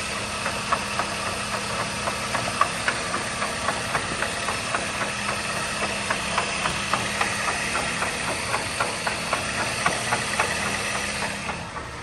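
Dodge Caliber engine running with a steady hum and a repeated click-clack, a few sharp clicks a second. The mechanic would think it is the front axle. The sound drops away just before the end.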